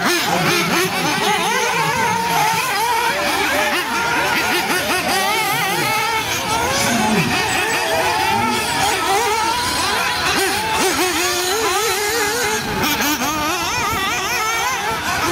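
Several 1/8-scale nitro RC off-road buggies and truggies racing, their small two-stroke glow engines revving up and down in overlapping, wavering high pitches.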